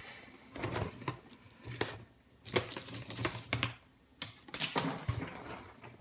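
Loose wires and plastic connectors of a Subaru engine wiring harness rustling and clicking as they are handled and sorted by hand on a concrete floor, in irregular, scattered ticks and short rustles.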